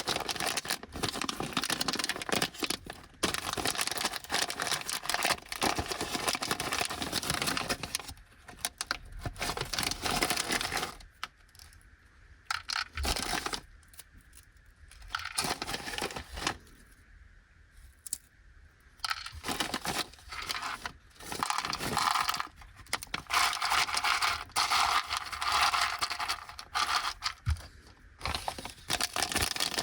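Plastic snack bag of Tohato Anpanman Caramel Corn crinkling and tearing as it is handled and opened, in long dense stretches with a quieter, sparser spell in the middle.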